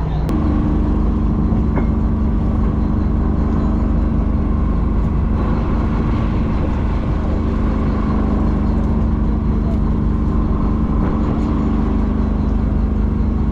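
Fishing boat's engine running steadily. Its note steps up just after the start, then holds at that speed.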